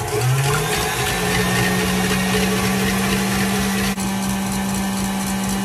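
Electric mixer with a balloon whisk running at high speed, beating egg whites. The motor speeds up over about the first second, then runs at a steady pitch, with one brief click about 4 seconds in.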